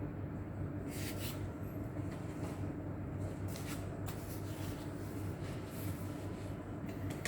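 Hands handling laptop packaging and parts: scattered short rustles and light clicks over a steady low electrical hum.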